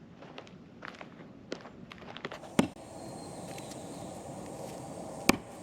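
Scattered light clicks and taps, with a sharp knock about two and a half seconds in. After it comes a steady background hiss, and a second sharp knock near the end.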